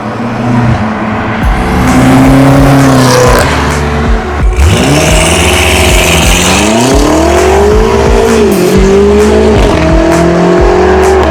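Straight-piped 2020 BMW M8 Competition's twin-turbo V8 accelerating hard, its exhaust note climbing in pitch with each gear. There is a short break at a shift about four and a half seconds in, another dip near the end, and the note rises again after each.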